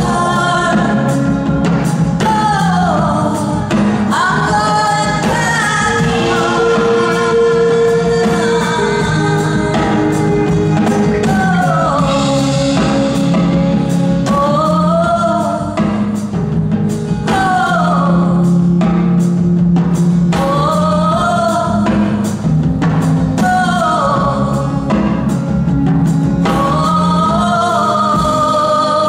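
Live band music: a woman singing long, gliding vocal lines over a strummed acoustic guitar and an electric guitar, with sustained low notes and a steady pulse of strokes underneath.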